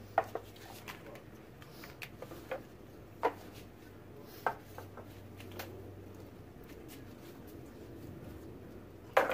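Light knocks and clatter of round lids and pans used as spray-paint masks being lifted off the paintings and set down on a table, a handful of scattered taps with a louder knock near the end.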